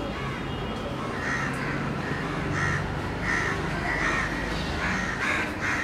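A bird calling repeatedly in short calls, starting about a second in and coming every half second to a second.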